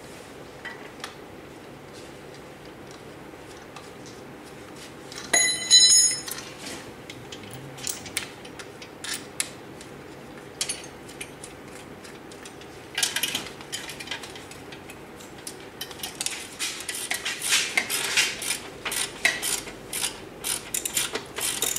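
Hand tools and steel motorcycle parts clinking and rattling as the front end of an M72 frame is worked on: one ringing metallic clang about five seconds in, then scattered clicks, and busy metallic clicking and rattling in short bursts through the second half.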